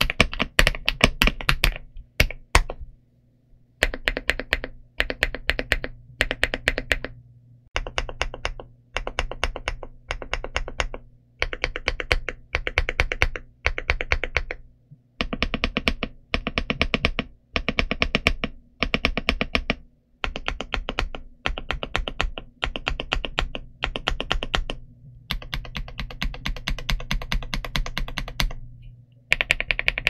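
Typing on an iLovBee B87 mechanical keyboard with Aster linear switches and double-shot PBT Cherry-profile keycaps. Quick runs of keystrokes about a second long alternate with short pauses, with a longer pause about three seconds in.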